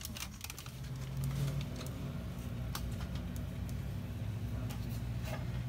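Scattered light clicks and taps over a steady low hum, typical of a phone camera being handled and carried past shop shelves.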